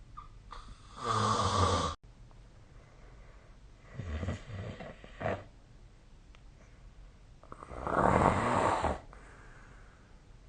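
A sleeping person snoring: three loud snores, each about a second or more long, a few seconds apart. The first cuts off sharply.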